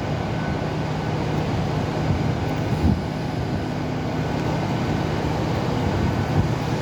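Diesel train's engine running steadily, a low hum with a few short knocks.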